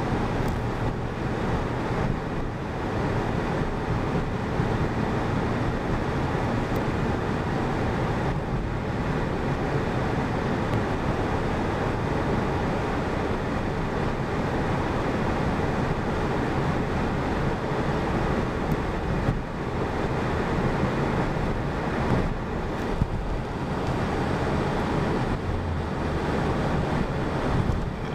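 Steady road and engine noise inside a moving truck's cab.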